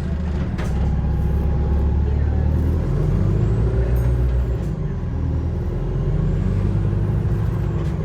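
Low, steady droning of a London bus heard on board, the 'horrible droning sound', with its low note shifting pitch about three seconds in, as in a change of engine speed or gear. A few light rattles or clicks sound over it.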